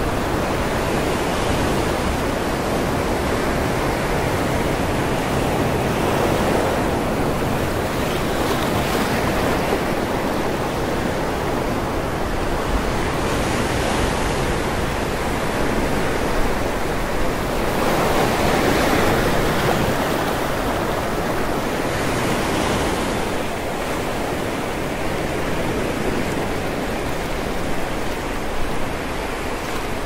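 Sea surf: waves breaking and washing up the beach in a continuous rush that swells every few seconds, loudest a little past the middle.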